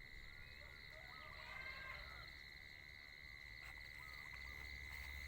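Faint rural morning ambience: a steady high-pitched insect drone, with a few faint bird chirps in the first couple of seconds and again about four seconds in.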